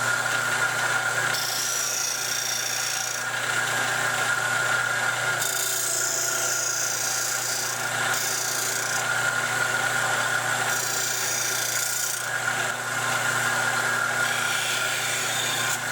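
Sears Craftsman combination belt/disc sander running with its steady motor hum, while a piece of wood is pressed against the sanding surface in repeated passes. A scratchy sanding hiss comes and goes several times, each pass lasting one to three seconds.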